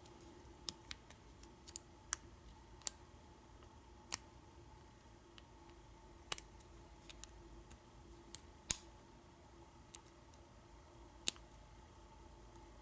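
Lock pick tapping and scraping the pin stacks of an American 1100 padlock during single-pin picking under heavy tension: faint, irregular small clicks, a few of them sharper, as pins are pushed and set.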